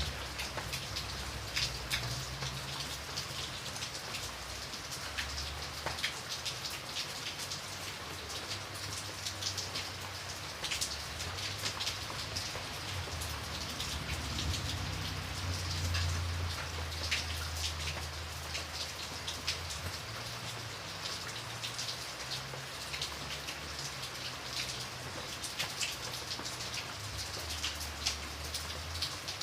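Steady rain falling, with many separate drops pattering sharply on a surface over a continuous hiss. A low rumble underneath swells and fades, strongest about halfway through.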